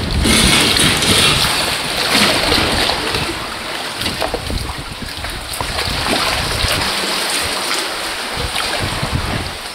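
Sea kayak paddling through a narrow rocky channel: paddle strokes splash, and water laps against the hull and rock, with many small splashes throughout. Wind buffets the microphone in low gusts.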